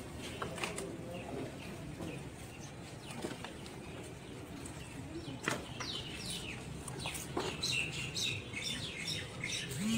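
Small birds chirping, with short quick calls that grow busier from about halfway through, over a steady low background noise and a few faint clicks.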